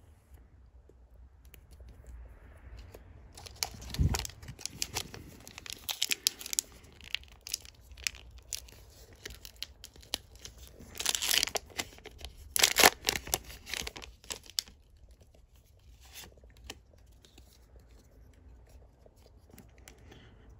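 Booster pack's foil wrapper being crinkled and torn open by hand, a run of sharp rips and crackles, loudest from about eleven to fourteen seconds in, with a dull thump near the start. Quieter handling ticks follow.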